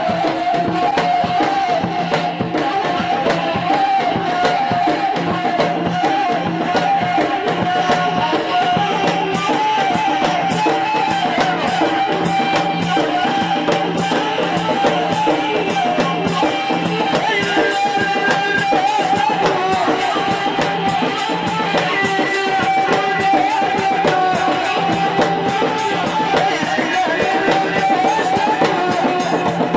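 Gasba, the Tunisian end-blown reed flute, playing a wavering, ornamented rboukh melody over large double-headed drums and a drum kit keeping a steady, driving dance rhythm, amplified through a PA.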